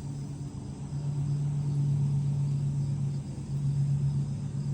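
Steady low machine hum, with a slight dip in level a little over three seconds in.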